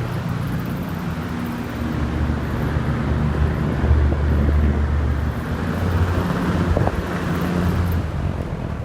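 Several box fans running together: a steady low motor hum under the even rush of air from their blades, with some wind buffeting on the microphone.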